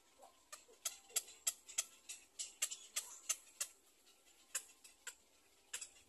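Irregular string of sharp, high clicks, about three a second at first, then sparser after a short pause.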